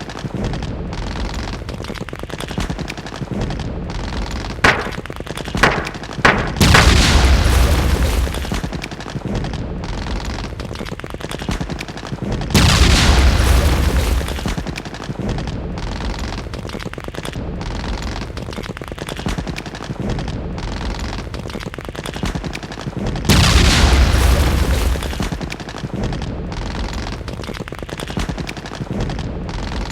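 Continuous battle-style gunfire with heavy booms every several seconds, each lasting a second or two, and three sharp cracks in quick succession about five seconds in.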